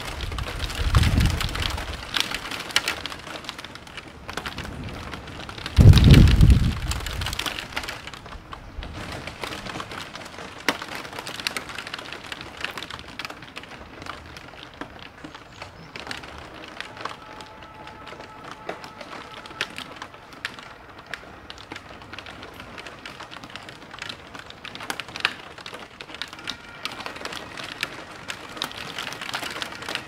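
Heavy rain pouring steadily, with rolls of thunder right at the start and again about six seconds in. Faint held tones come in over the rain in the second half.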